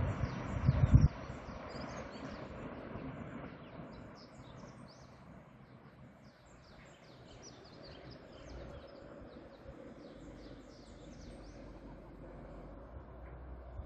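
Small birds chirping in quick short calls over a faint steady low rumble. A few loud low thuds come in the first second.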